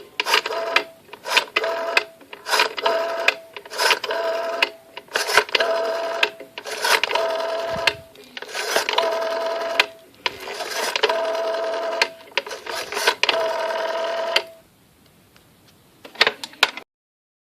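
Rotary telephone being dialled: the dial whirs back and ratchets about ten times, each digit beginning with sharp clicks, and a few handset clicks follow near the end.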